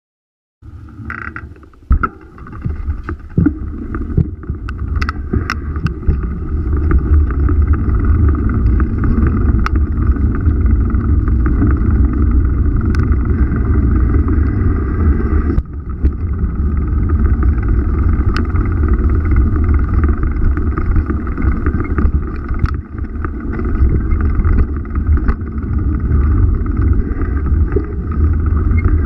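Steady, loud rumble of riding, with wind and road noise picked up by a camera mounted by the rear tyre of a moving two-wheeler. It starts about half a second in, and scattered knocks and clicks run through it.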